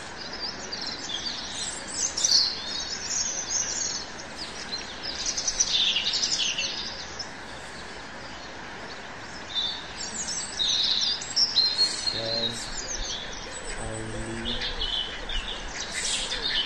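Small birds chirping and twittering in irregular clusters throughout, with two brief low hums about three quarters of the way in.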